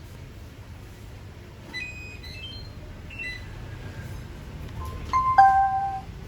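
Short electronic beeps at several pitches, then a louder chime of three stepped tones near the end, like the prompt tones of a MiFa F6 Bluetooth speaker.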